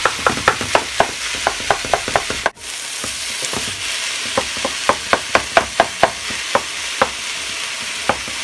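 Ground meat frying in a pan, sizzling steadily with frequent sharp pops. The sound cuts out for a moment about two and a half seconds in.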